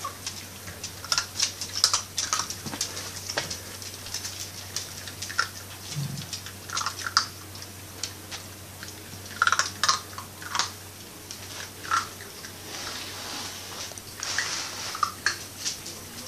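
Several puppies crunching dry kibble: a run of irregular, crisp crunches and clicks, thicker in a few short spells.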